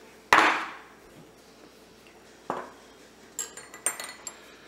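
Kitchenware handled on a countertop: one hard knock, a lighter knock about two seconds later, then several quick, high, ringing clinks of a spoon against the mixing bowl near the end as water is added to royal icing.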